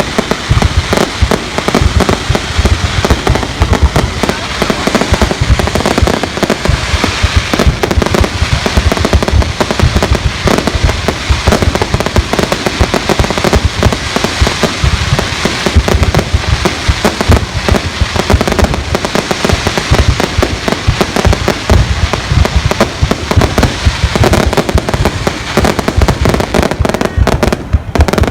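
Aerial fireworks display: a continuous rapid barrage of bangs and crackles with deep booms, loud throughout.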